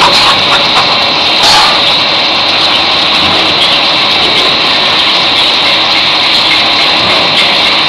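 CJ2020 CNC gantry plate drilling machine drilling a hole in a steel plate under a coolant spray: a loud, steady machining noise with a constant high whine.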